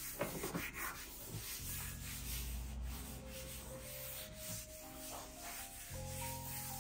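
A cloth wiped back and forth across a desk top in repeated swishing strokes, strongest in the first second, over soft background music.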